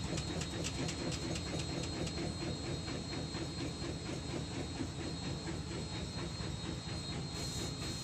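A shock absorber making an abnormal noise under a steady rumble, with a rapid ticking of about five a second that fades out after the first few seconds.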